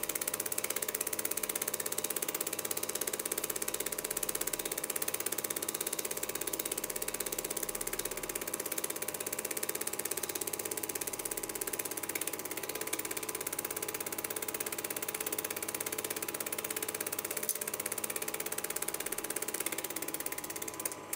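Cine film projector running: a steady, rapid mechanical clatter with an even hum underneath.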